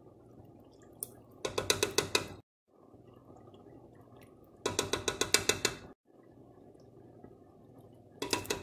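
A spoon tapping rapidly against a pan to knock off thick coconut milk, three times, each a quick run of about ten light taps in a second, over a faint steady hiss.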